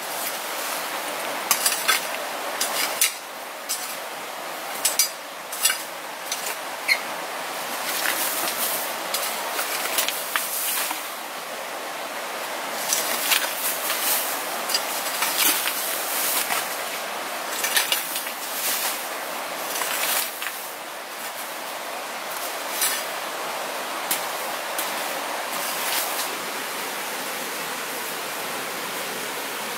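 A long-handled hand tool scraping and striking hard dirt ground in quick, irregular strokes, over the steady rush of a nearby stream. Near the end the strokes stop, leaving only the rushing water.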